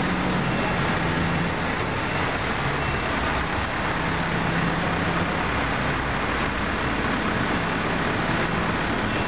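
Car transporter truck's engine running steadily, mixed with road traffic noise; a low hum fades in and out a few times.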